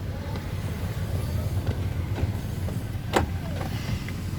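Steady low rumble of a car heard from inside the cabin, with a single sharp click about three seconds in.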